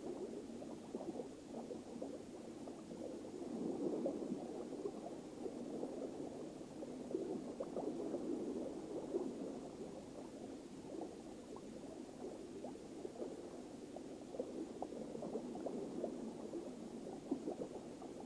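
Sea water washing over a rocky shore, a steady fizzing, crackling wash that swells and eases every few seconds.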